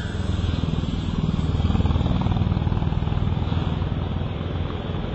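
Road traffic: a motorcycle passing and a box truck approaching, with a low engine rumble that is loudest about two seconds in.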